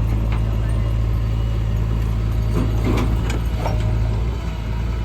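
Heavy diesel engine running steadily, with a few sharp metallic knocks about two and a half to three and a half seconds in.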